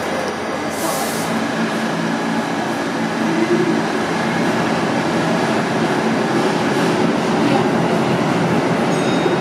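New York City subway train of R46 cars pulling out of the station on the far track, a steady rumble of wheels on rail that grows a little louder about three seconds in. A short hiss comes about a second in.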